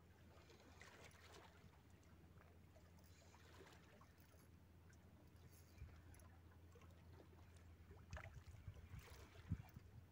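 Near silence: a faint steady low rumble of wind and sea at the shore, with a few soft knocks near the end.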